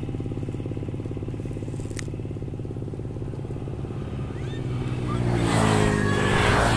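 Road traffic: a vehicle engine running steadily, then a vehicle passing close by about five seconds in, louder, with its engine pitch rising. A single sharp click about two seconds in.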